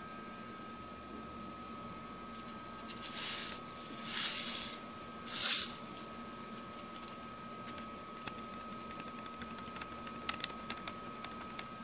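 A folded sheet of paper rustles in three short bursts as gold flakes are poured off it onto a digital pocket scale's tray, followed near the end by a few faint light ticks.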